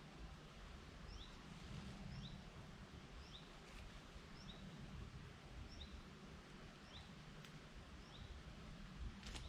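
A small bird repeating a short, high, upward-sliding chirp about once a second, over a faint steady hiss of background noise.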